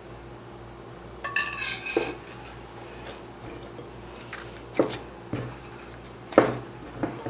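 A metal spoon clinks on a glass bowl with a short ringing about a second in, then hands knead soft dough in the bowl, with a few dull knocks of dough and hand against the glass, the loudest a little after six seconds in.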